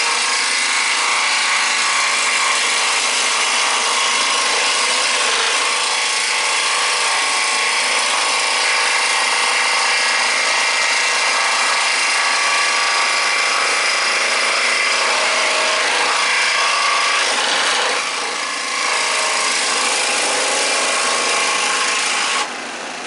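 Switzer 16-inch 125 W scroll saw running, its reciprocating blade cutting through a piece of wood. The cutting noise drops sharply near the end, leaving the lighter sound of the saw running without load.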